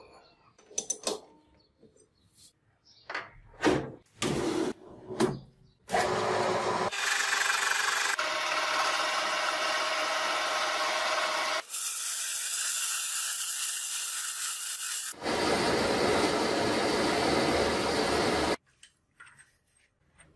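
A few short knocks and scrapes of hand work, then a power tool cutting or grinding metal for about twelve seconds, in several clips whose sound changes abruptly from one to the next, stopping suddenly near the end.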